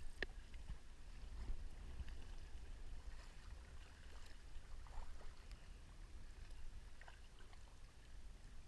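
Sea kayak paddling in calm water: the paddle blades dip and drip with small splashes and trickles, over a low steady rumble.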